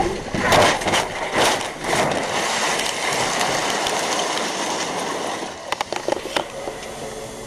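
Car crashing and rolling over, heard from inside the cabin: a rapid run of loud impacts in the first two seconds, then a steady scraping noise for about three seconds as it slides, and a few sharp knocks near the end before it goes quieter.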